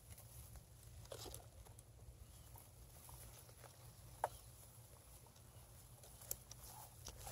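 Very faint sound of a sulcata tortoise moving through dry grass: a few soft clicks and rustles spread out over a low steady rumble.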